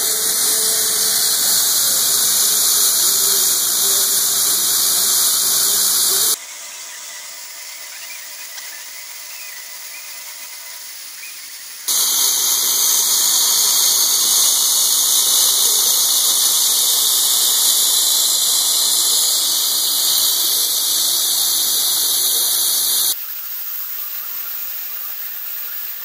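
Bridgeport-type vertical milling machine cutting a steel shaft under an air-mist coolant spray, a loud steady hiss. The sound drops abruptly to a quieter level about six seconds in, comes back about twelve seconds in, and drops again near the end.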